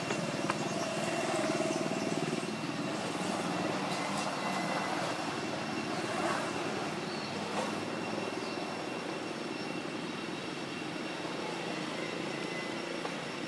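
Steady outdoor background drone, mostly low, with a faint steady high-pitched tone over it and a few faint ticks; it eases off slightly toward the end.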